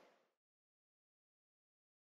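Silence: the sound track is digitally blank.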